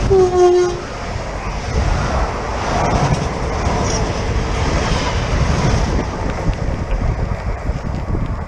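Electric commuter train's horn giving a short blast right at the start, dropping slightly in pitch as it passes. The train then rushes by with a loud rush of air and wind.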